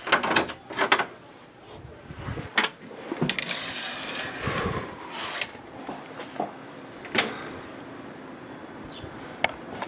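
A brass doorknob turning and its latch clicking as a panelled wooden door is pulled open, then scattered knocks and scuffs from steps and handling.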